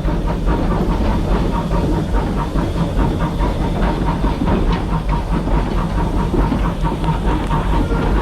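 Small steam locomotive working, loud and steady: steam hiss with a rapid, uneven clatter running through it.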